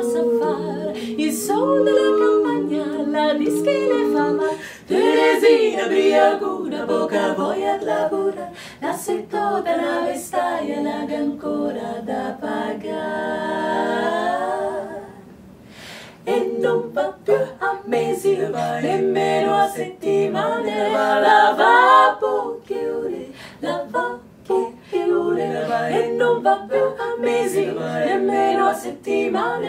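Four women singing a cappella in close harmony, held chords under a moving lead voice. About halfway through the voices glide upward and pause briefly, then the harmony picks up again.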